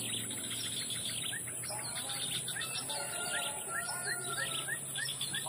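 Small birds chirping, with a quick run of about eight short rising whistled notes in the middle, over a steady high hiss.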